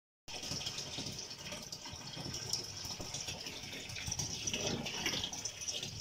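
Water running steadily from a hose into the plastic wash tub of a Mika twin-tub washing machine, splashing onto the pulsator as the tub fills.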